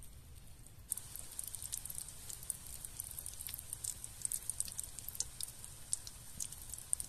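Persian potato-and-ground-meat cutlets frying in hot oil in a pan, the oil sizzling with dense, irregular crackles and pops. The sizzle starts abruptly about a second in.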